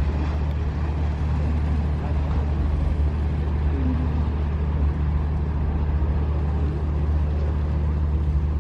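A boat's engine droning at a steady low pitch, with faint voices in the background.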